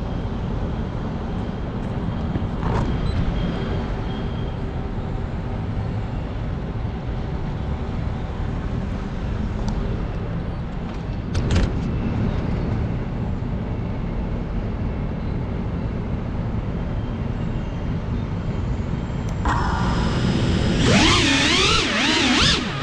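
FPV racing drone's brushless motors and propellers heard through its onboard GoPro: a steady low rumble of wind and vibration with a couple of brief knocks. In the last few seconds the motors' whine comes up loud, gliding up and down in pitch as the throttle changes.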